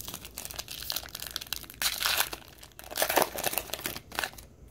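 Plastic wrapper of a Panini Score football card pack crinkling and tearing as it is ripped open by hand, in irregular bursts, loudest about two and three seconds in.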